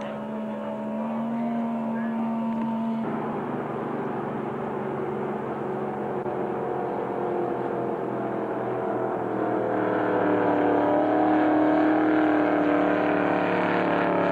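Ski race boat engines running hard at speed on the water, a steady engine note. The note changes abruptly about three seconds in and grows louder toward the end with slight rises and falls in pitch.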